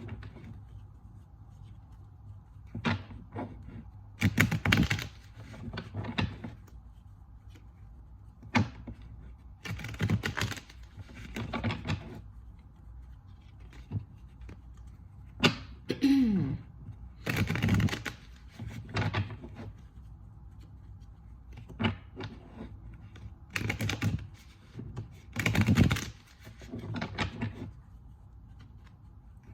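Tarot cards being shuffled by hand, irregular bursts of riffling and rustling with sharp taps and knocks as the deck is handled on a table.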